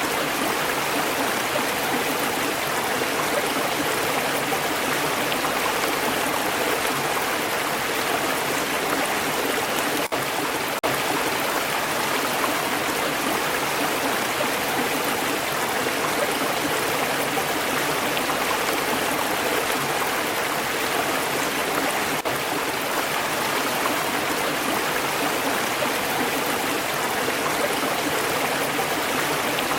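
Stream water flowing steadily with a continuous babbling rush, briefly dipping about ten seconds in.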